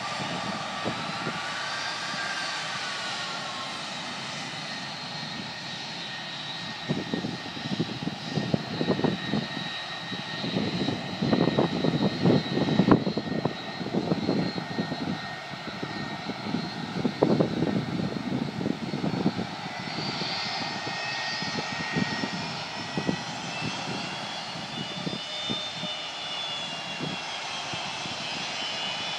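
Jet airliner engines running: a high turbine whine that glides up and down in pitch, joined through the middle stretch by a rough, gusty low rumble that rises and falls.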